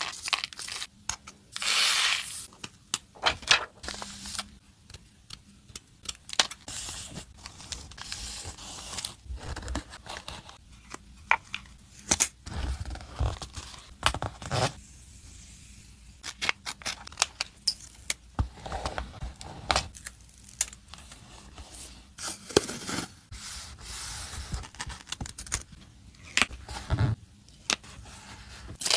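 Close-up journaling and sticker-crafting sounds: metal tweezers tapping and clicking, and paper stickers and a small plastic sequin box being handled, in many short irregular clicks, crinkles and rustles with a few longer tearing swishes as stickers are peeled.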